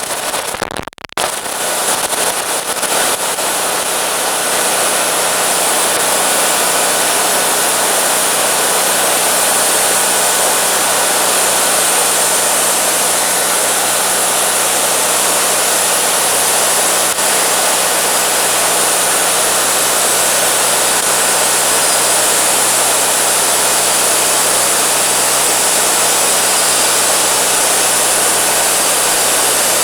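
Wood-Mizer LT40 band sawmill running together with its dust collector blower: a loud, steady rushing hum, dipping briefly about a second in.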